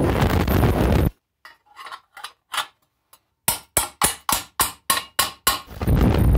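Stick-welding arc crackling and buzzing for about a second. A ball-peen hammer then strikes a steel tube in a quick run of sharp blows, nearly four a second, and the welding arc crackles again near the end.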